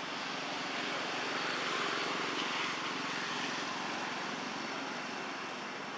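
Steady drone of a distant engine, with a faint low hum under a broad wash of noise, swelling slightly about two seconds in.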